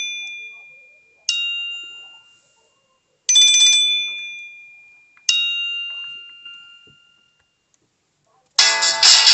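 Nokia 300 phone ringtone: a two-note electronic chime, a bright higher note then a lower one, each struck sharply and fading, with the pair played twice at about two-second steps. Near the end a different, guitar-like ringtone begins.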